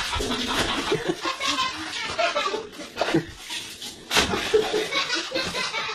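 People laughing, in irregular bursts.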